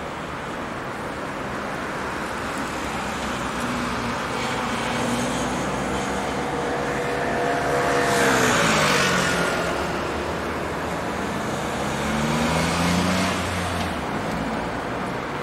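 Alstom Citadis tram's electric traction motors whining as it moves off, the whine rising in pitch about three-quarters of the way through, over steady road traffic noise. About halfway through a louder rush with a steeply falling tone passes.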